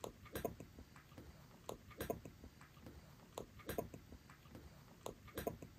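A cat chewing its food: faint, irregular crunching clicks, a few each second.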